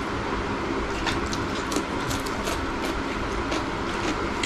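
Eating sounds: scattered crisp clicks of chewing and of fingers working food on a plate, over a steady rumbling background noise.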